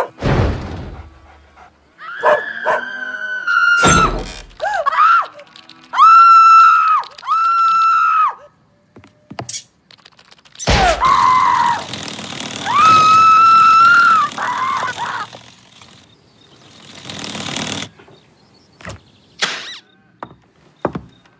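Cartoon sound effects: a few heavy thumps and a run of high, squeaky cries, several held for about a second, with a short rush of hissing noise near the end.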